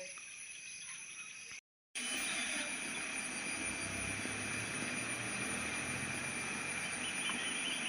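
Outdoor ambience with a steady high insect drone. It breaks off briefly to silence early on, then comes back with a low rumble swelling and fading in the middle. A fast pulsing chirp joins near the end.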